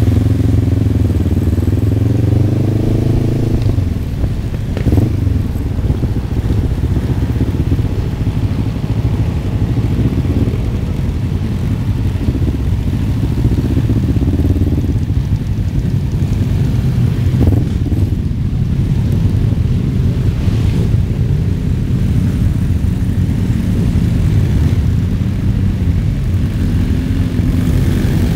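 Motorcycle engines running in a slow group ride, heard from on board one of the bikes, with a steady low drone and engine notes that rise and fall with the throttle.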